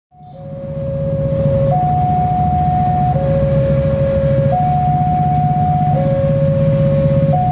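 Railway level-crossing warning alarm sounding two alternating electronic tones, a high one and a lower one, each held about a second and a half, over a steady low rumble. It fades in over the first second.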